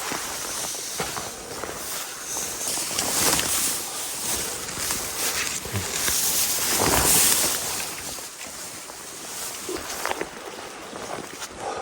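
Creek water rushing, a steady noise that swells louder twice, about 3 and 7 seconds in.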